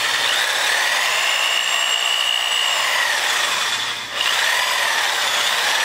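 DeWalt DW331K corded top-handle jigsaw cutting through a countertop, a loud steady sawing with a motor whine that rises and falls in pitch as the variable-speed trigger is worked. The saw eases off for a moment about four seconds in, then picks back up.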